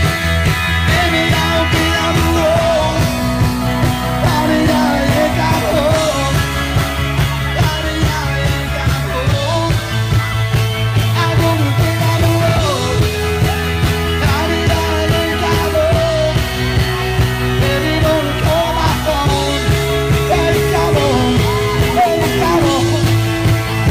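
Rock band playing a song with a sung lead vocal over bass and drums, the bass holding long notes that change every few seconds.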